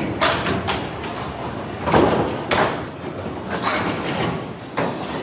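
Candlepin bowling alley: balls rumbling down the wooden lanes and several sharp crashes of balls hitting the thin wooden pins, which clatter over the pin deck.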